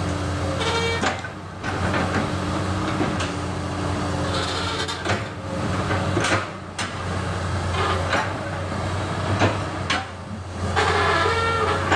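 Komatsu excavator working: its diesel engine runs steadily under several sharp clanks and a couple of short high squeals from the working arm and bucket.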